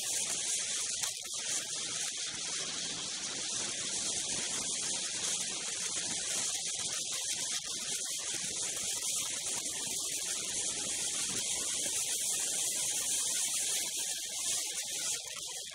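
Steady high hiss of wind and rushing air on a moving snowmobile, with no clear engine note standing out.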